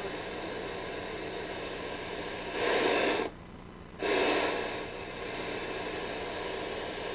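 Static hiss from a vintage Emerson portable black-and-white TV's speaker, tuned to a VHF channel with no signal. About two and a half seconds in the hiss swells louder, cuts out suddenly for most of a second, then returns loud before settling back to its steady level.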